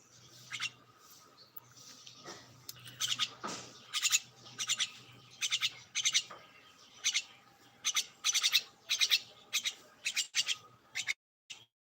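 Birds chirping: repeated clusters of quick, high notes, every half second to a second, over a faint low hum. The sound cuts out briefly near the end.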